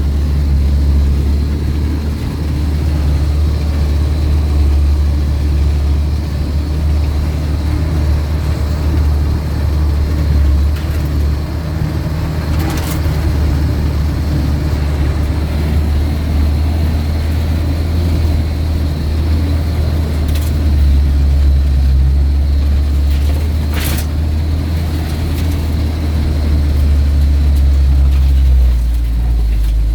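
UAZ off-road vehicle's engine running with a steady low drone as it drives, with a few short sharp knocks, the loudest about three quarters of the way through.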